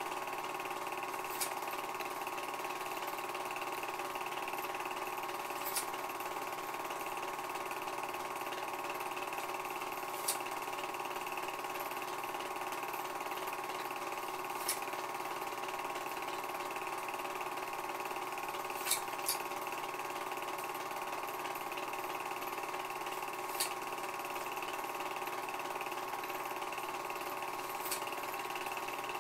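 Home-movie film projector running: a steady mechanical whir and hum, with a short click about every four and a half seconds.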